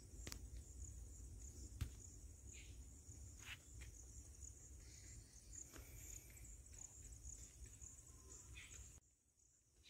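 Faint, steady high-pitched chirring of insects over a low outdoor rumble, with a few soft clicks; it drops away about nine seconds in.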